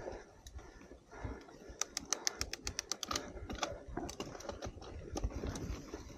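Mountain bike rolling over dry, leafy, rocky singletrack: bumps and rattle from the trail, with a quick run of sharp ticks about two seconds in and scattered ticks after.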